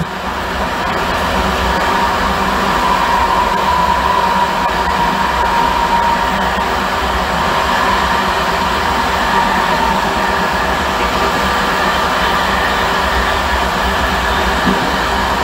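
Steam-hauled express train running at speed, heard from an open carriage window: a steady rush of wind and rolling wheels that builds over the first couple of seconds and then holds.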